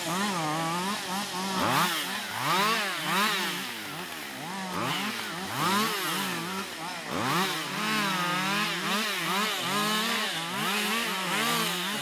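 Two-stroke chainsaw limbing a felled conifer, its engine revving up and down about once a second as the throttle is squeezed and released for each branch.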